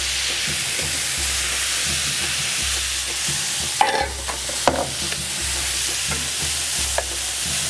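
Butter sizzling as it melts in a hot stainless steel skillet, alongside chopped chorizo and ham frying in the next pan. There are a few light utensil knocks about halfway through and again near the end.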